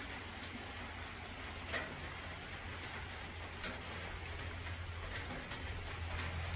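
Steady rain falling, with scattered drops ticking, over a low rumble that grows louder near the end.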